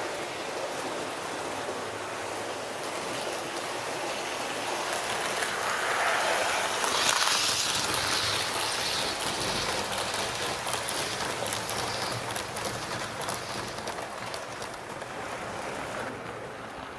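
HO-scale model train, a Fleischmann class 39 steam locomotive with its coaches, running along the track with a steady rushing rattle of wheels on rail. It grows louder to a peak about seven seconds in, with a run of sharp clicks as it passes close, then fades.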